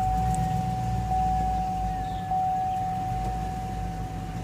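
A 2005 Cadillac Escalade's V8 idling just after being started, with a low, steady rumble. A steady high tone sounds over it the whole time.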